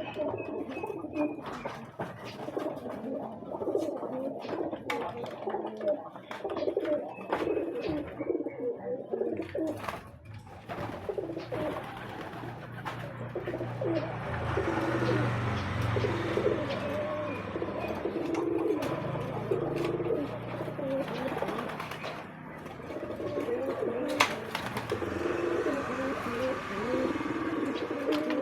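Domestic pigeons cooing, several birds overlapping in repeated low warbling coos, with a sharp click about 24 seconds in.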